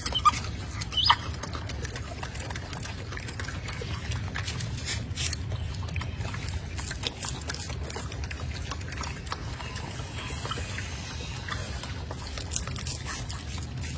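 Golden snub-nosed monkeys chewing and munching fruit, with many small wet clicks over a steady low hum. There are two short sharp sounds about a second in.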